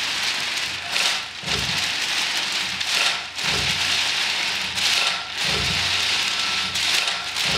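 Many sheets of paper rustled and shaken at once, a dense rain-like hiss that swells in waves about every two seconds, with low thumps about every two seconds underneath.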